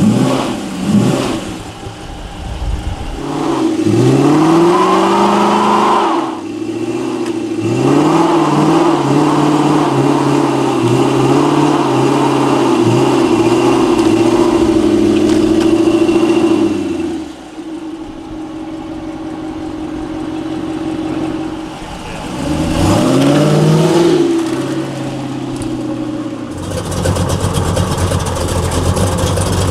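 Muscle car V8 engines revving hard and accelerating. The pitch climbs sharply several times, and in one stretch the engine holds high revs for about nine seconds, wavering, before dropping back. Near the end a deeper, rougher engine sound takes over.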